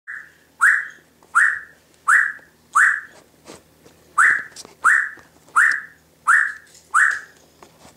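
Timneh African Grey parrot whistling a repeated series of about ten short, sharp-onset notes, roughly 0.7 s apart with one brief pause midway.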